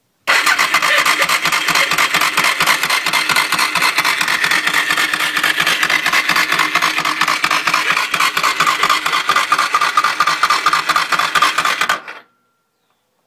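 Suzuki DR650's single-cylinder engine being cranked by the electric starter with a fast, steady rhythm for about twelve seconds without firing, then stopping abruptly. The engine had run out of oil, and the owner fears it is badly damaged.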